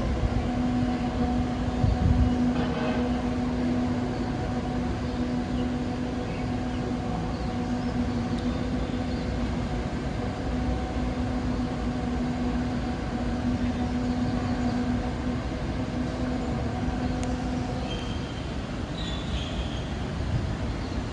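A steady low droning hum with a few overtones over a rumbling background, holding one pitch and stopping about 18 seconds in.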